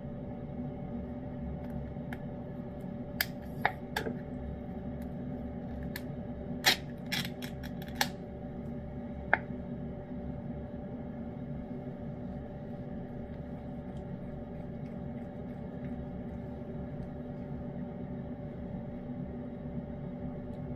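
A cat eating wet pâté cat food: a scattering of short, sharp wet clicks and smacks from chewing and licking, bunched in the first half and then stopping, over a steady low hum.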